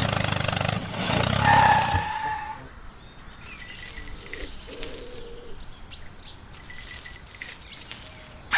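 Mini tractor's small engine running steadily, cutting off about two seconds in. Faint high chirps follow.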